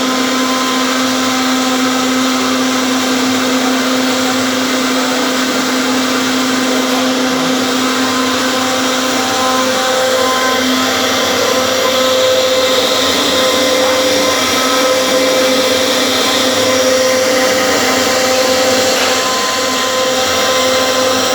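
CNC router spindle running at speed with a steady whine, carving wood; the pitch shifts slightly now and then as the cut changes.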